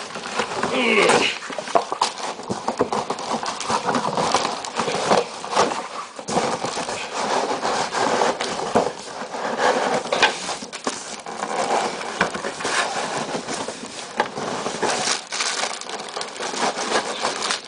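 Cardboard box and packing being torn, pulled and scraped as a coffee machine is worked free of its packaging: an irregular run of crackles, rustles and knocks.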